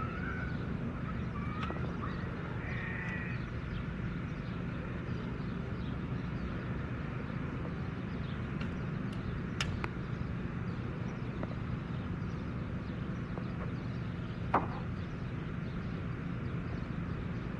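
Steady outdoor background rumble with a few short bird chirps in the first few seconds, a sharp click about halfway through and another brief sharp sound near the end.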